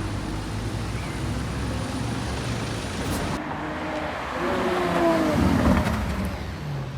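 A sports car's engine running at low revs, then accelerating past with a rising note that grows loudest about three-quarters of the way through before easing off.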